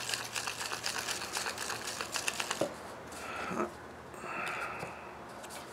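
Stacked enamel sifters with red plastic end caps being shaken, a fast rattling of many small clicks as the enamel is sifted through the mesh; it stops about halfway with a knock, followed by a couple of short scraping, rubbing sounds as the plastic cap is handled.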